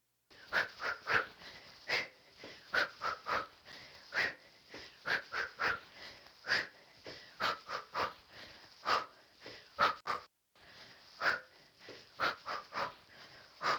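Sharp, forceful exhalations, one with each strike of a repeated kick, cross, hook, hook kickboxing combination, in quick clusters of three or four with short gaps between.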